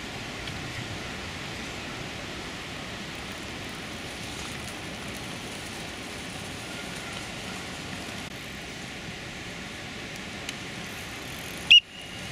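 Steady outdoor background hiss with no distinct source, broken near the end by one short, sharp, loud click with a brief high tone.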